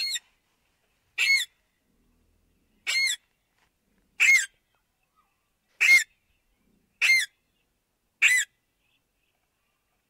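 Alexandrine parakeet giving seven short calls, spaced about a second to a second and a half apart, each call arching up and then down in pitch.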